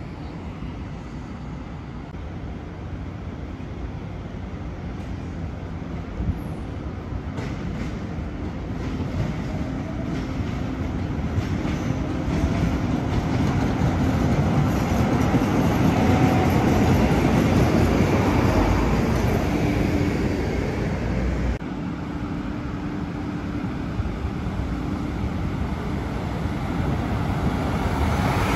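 MBTA Green Line light-rail train running on street-side tracks, getting louder as it approaches and passes, mixed with road traffic.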